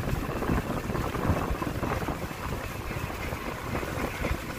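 Wind buffeting the microphone on a moving tour boat, over the boat's steady low rumble.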